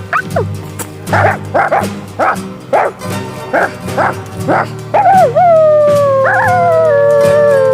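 A person imitating a wolf: a quick run of short yips and barks, then, about five seconds in, one long howl that slowly falls in pitch. Background music runs underneath.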